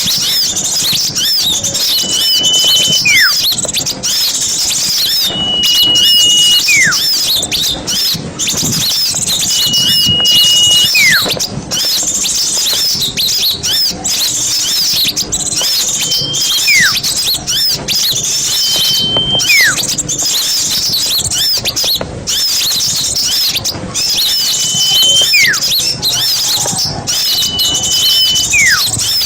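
Bird-lure recording of a flock of small songbirds chattering busily in high, rapid chirps. Over it a whistled call repeats about every three to four seconds: a short held note, then a quick falling slur.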